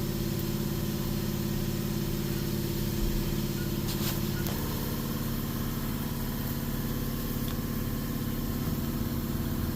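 An engine idling steadily, its tone shifting slightly about halfway through, with a single sharp click about four seconds in.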